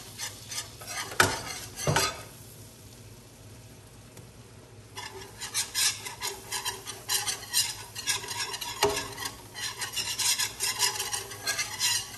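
A wire whisk scraping fast against the bottom of a square copper-coloured pan as flour is whisked into sizzling melted butter to make a roux. There are two sharp knocks in the first couple of seconds, then a lull of about three seconds, after which the quick scraping strokes start again.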